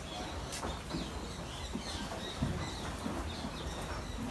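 Faint background of a goat pen: light rustling and shuffling with a few short high chirps, and one sharp click about half a second in.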